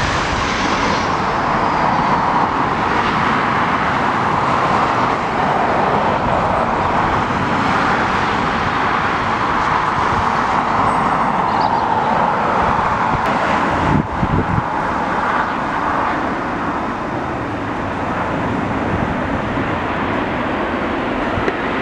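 Jet engines of a Boeing 737 airliner running as it lands and rolls out along the runway, a loud, steady rushing noise, with a short knock about fourteen seconds in.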